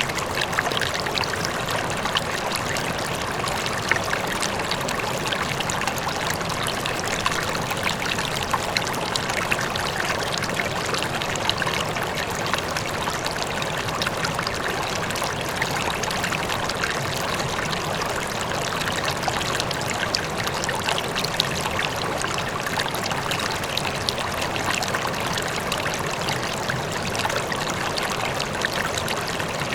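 River water flowing steadily over rocks, a constant rushing and splashing with many small gurgles, with a waterfall faint in the distance.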